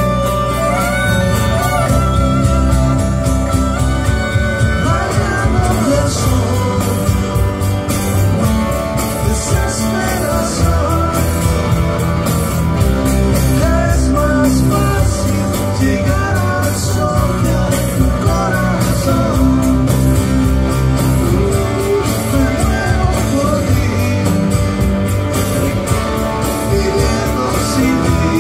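Live pop-rock band playing through a PA: a male voice singing over strummed acoustic-electric guitar, electric guitar, a bass line and a steady beat.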